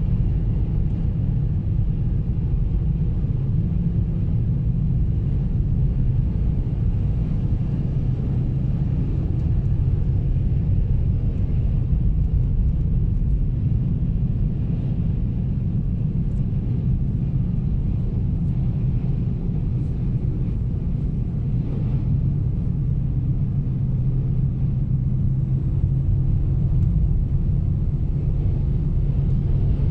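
Steady low rumble of a car driving on a snow-covered road, heard from inside the cabin: engine hum and tyre noise with no change throughout.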